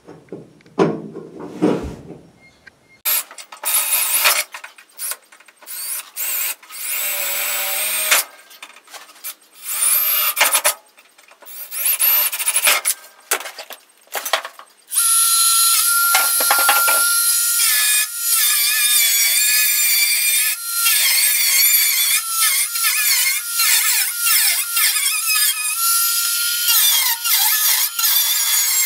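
Power tool cutting the radio opening in a steel dash patch panel of a 1963 Chevy C10, in short stop-start bursts at first, then cutting steadily from about halfway with a high, wavering whine.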